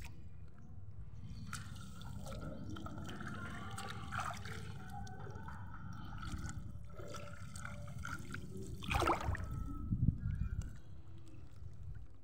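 Water sloshing and splashing around a person wading and hauling a gill net by hand in shallow water, with a couple of louder splashes about nine and ten seconds in. A steady low wind rumble sits under it.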